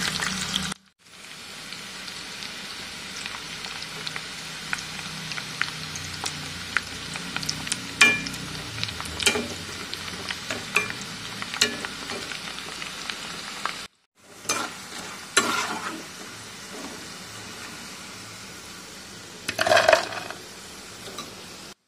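Chickpea-flour pakoras sizzling as they are re-fried in hot oil in a wok, with scattered sharp clicks of a spatula against the pan as they are stirred. Near the end there is a brief louder clatter of the fried pakoras landing in a steel bowl.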